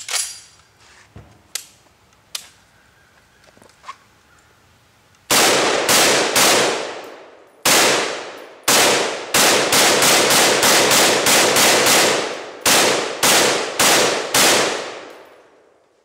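An M1A rifle in .308 fired about twenty times in semi-automatic. The first shots are spaced about half a second to a second apart, there is a rapid string in the middle, and four slower shots end it, each shot loud with a trailing echo. Before the shooting come a few metallic clicks and clacks as the rifle is loaded with a fresh magazine.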